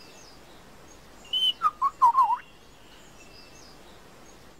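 Lyrebird calling: a short high whistle, then a quick run of loud warbling, bending notes, starting about a second in and lasting about a second.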